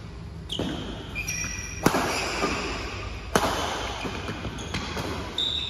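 Badminton rally: rackets strike the shuttlecock in sharp cracks about one and a half seconds apart, each ringing on in the hall, with short high squeaks of court shoes between the hits.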